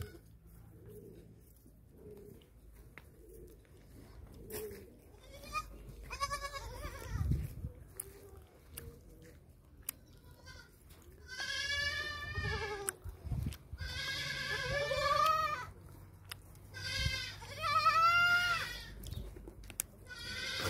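Goats bleating repeatedly, each call a quavering cry lasting about a second or more. Two fainter calls come before the middle, and louder, longer calls follow close together in the second half.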